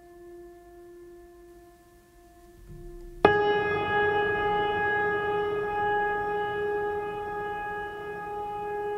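Background music of long held notes: a soft steady tone, then about three seconds in a much louder, higher note starts suddenly and holds, slowly easing off.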